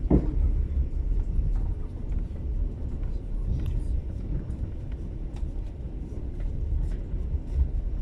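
Steady low running rumble of a moving passenger train heard from inside the carriage, with faint scattered ticks and rattles.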